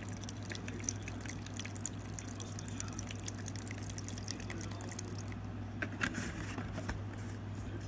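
91% alcohol being poured from a bottle into a small container: a trickle of many fine ticks that stops about five seconds in.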